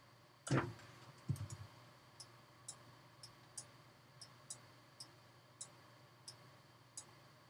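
Computer mouse clicking: faint, sharp single clicks about every half second as mask-path points are placed and dragged. A duller, louder knock comes about half a second in, and a low thump just after a second in.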